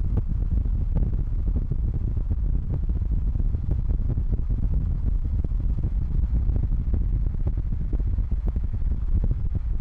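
Steady low rumble of a car driving at speed on a highway: tyre and road noise with wind on the microphone.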